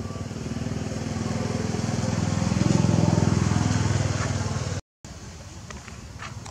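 A motor vehicle engine passing close by, growing louder to a peak about three seconds in and then fading. The sound cuts out for a moment just before five seconds.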